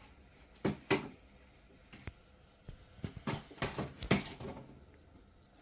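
A series of about eight to ten sharp clicks and knocks at irregular intervals, the loudest near the end: kitchen utensils and containers handled at the stove.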